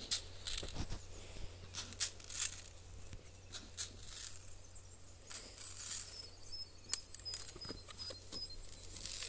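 Footsteps in rubber boots on loose, freshly dug soil: irregular crunches and scuffs over a low steady hum. A faint run of high chirps comes about two-thirds of the way through.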